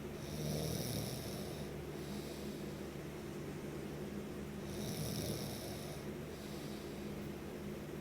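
A sleeper snoring: two long snores about four seconds apart, each lasting over a second.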